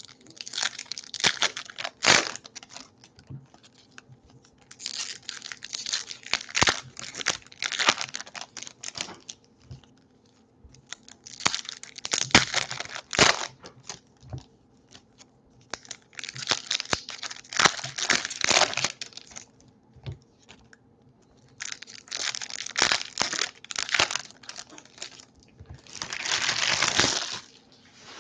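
Foil trading-card packs (2018 Topps Series 2 baseball) being torn open and their wrappers crinkled, in about six bursts of crinkling, each a couple of seconds long, with short pauses between.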